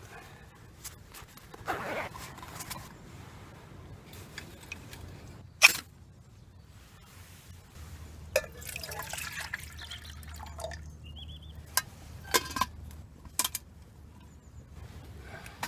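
Water being poured and dripping while a brew is made, among light clinks and knocks of camping kit being handled, with one sharp knock about six seconds in.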